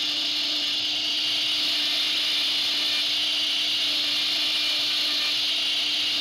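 CNC router spindle running, its cutter carving a row of bead moulding into a wooden door panel: a steady high hiss from the cutter in the wood over a steady hum.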